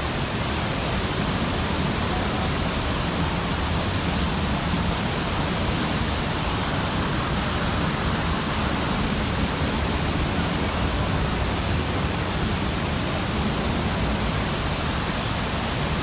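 Steady rush of water pouring into an Erie Canal lock chamber as it fills, churning turbulently against the hull; a runaway fill valve made this filling unusually fast and rough.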